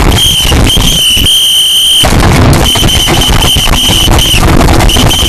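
Loud, distorted crackling noise with a high, steady whistling tone that cuts in and out several times at irregular lengths.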